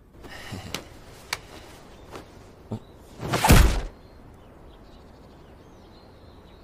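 A few faint knocks, then one short loud rush of noise about three and a half seconds in, lasting about half a second.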